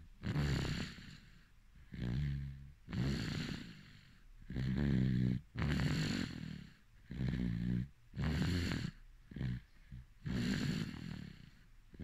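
Steady, rhythmic snoring: a rasping snore on each breath in and each breath out, about ten snores in all.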